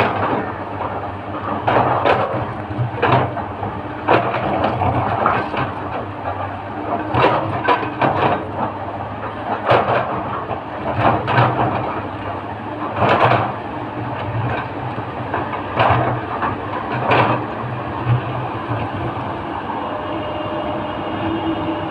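L&T Komatsu hydraulic excavator at work: its diesel engine drones steadily while the bucket digs and loads soil into a tipper truck, with irregular crunches and knocks of soil and stones.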